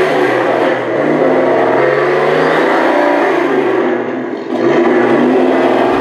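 Tamiya Toyota Tundra Highlift RC pickup truck driving, with a car-engine sound that revs up and down in pitch and dips briefly a little past the middle.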